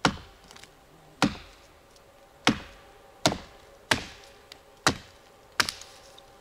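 A small Viking axe, about half a kilo, chopping into a tree: seven sharp strikes, roughly one a second.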